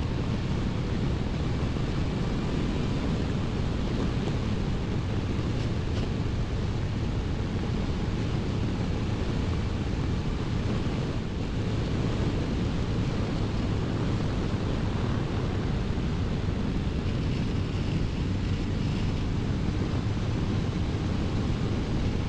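Honda CBR1100XX Blackbird's inline-four engine running at a steady cruise, with wind rushing over the microphone.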